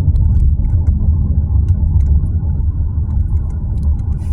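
Steady low rumble of a car being driven, heard from inside the cabin, with a few faint ticks.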